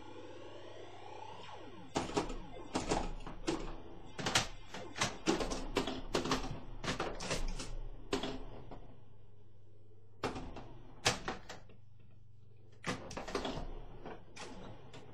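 Pinball machine in play: sharp mechanical clacks and knocks in quick, irregular runs, with a lull past the middle, over a steady electrical hum. The first two seconds carry rising tones.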